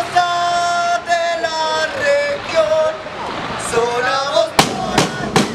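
A group of voices chanting together in long held notes, then three loud drum strikes near the end as the batucada's drums come in.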